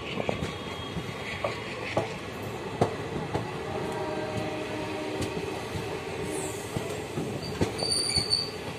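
Passenger train running, heard from one of its own coaches: a steady rumble of wheels on rail with irregular clacks over the rail joints. A faint wheel squeal comes in about halfway through.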